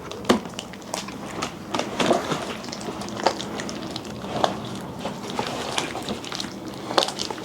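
Slime being worked by hand, giving irregular sticky clicks and small wet pops as it is squeezed and pulled apart.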